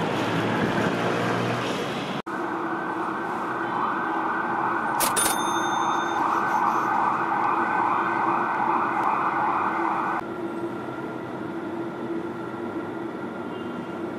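Pool fountain jet splashing for about two seconds. After an abrupt cut comes a steady hum with a siren-like rising tone that repeats about twice a second and stops suddenly around ten seconds in.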